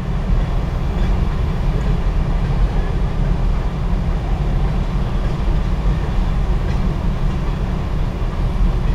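CSX freight hopper cars rolling steadily through a grade crossing: a continuous rumble and rattle of wheels on the rails, heard from inside a stopped car.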